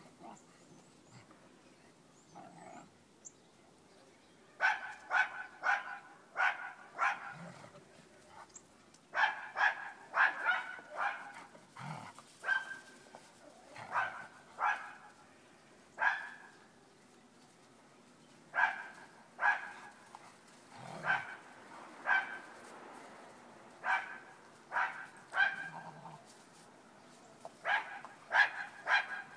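Dogs barking during rough play-wrestling: runs of short barks, several a second, starting about four seconds in and coming in bursts with short pauses between.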